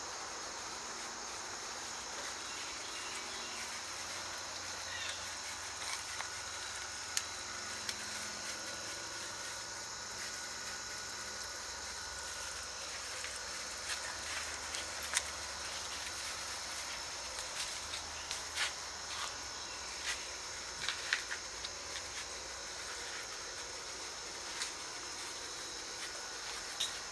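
Steady high-pitched insect chorus, crickets, with scattered light clicks and taps in the second half.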